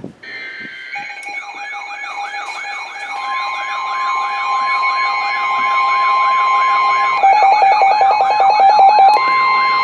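Weather alert radios going off together on a NOAA Weather Radio warning: a repeating wailing siren tone over steady and pulsing electronic beeps, growing louder. A fast pulsing beep joins about seven seconds in.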